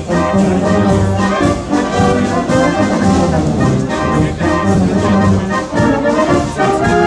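Wind band of brass and clarinets playing together, with full held chords over a steady bass line.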